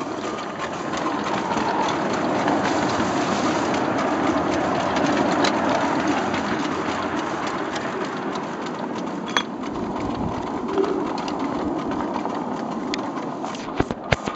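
A 7¼-inch gauge miniature steam locomotive running along its track with a steady, noisy rumble and hiss. A sharp click comes about nine seconds in, and a few more come in quick succession near the end.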